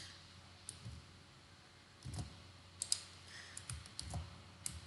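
Faint, scattered clicks and taps of a computer keyboard, a few at a time with gaps between them.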